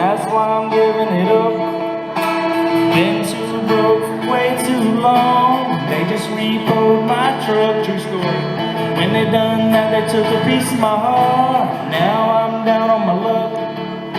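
Country song performed live: a man singing over acoustic guitar.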